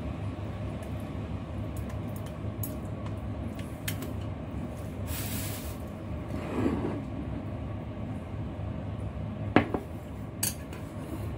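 Chopsticks stirring in a ceramic bowl of noodle soup, with light clinks against the bowl over a steady low hum. One sharp clink about two-thirds of the way through is the loudest, followed by a smaller one.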